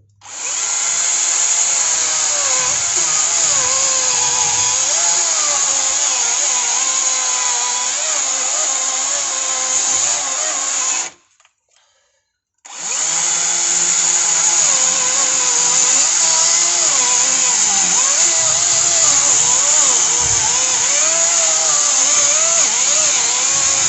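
DeWalt FlexVolt battery chainsaw with a 20-inch bar cutting into a frozen fir log under heavy feed pressure. The motor and chain whine wavers in pitch as the saw bogs down under load without stopping the chain. It stops about eleven seconds in, then starts cutting again a second and a half later.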